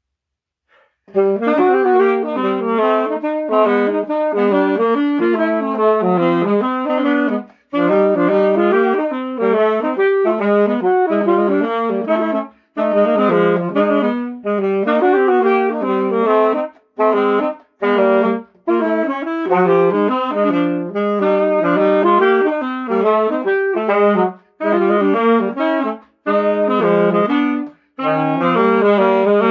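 Two alto saxophones, one a Selmer Series III, playing a bebop duet in quick, shifting notes. They come in about a second in and pause briefly between phrases.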